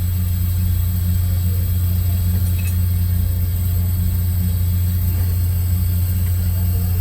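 Steady low drone of a vessel's running machinery, an even hum with no change in pitch or level.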